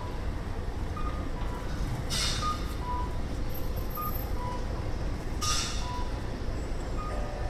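Electronic two-note cuckoo call of a Japanese accessible pedestrian crossing signal, a high note then a lower one, repeating every second and a half or so over the steady rumble of city traffic. Two brief hissing whooshes come through about two and five and a half seconds in.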